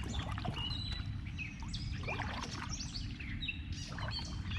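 Several birds chirping and calling in short rising and falling notes, over a steady low rumble.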